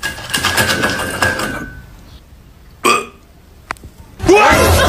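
Clattering and rustling as a plush toy dog pushes into a glass bowl of crackers, lasting about two seconds. About three seconds in comes one short, loud pitched sound, then a click. Voices start near the end.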